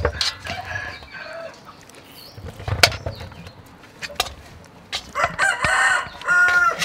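Raw whole plucked chicken handled in a metal bowl, its wet wings pulled out and flapped, with one sharp knock about three seconds in. A live chicken calls in the background during the last two seconds.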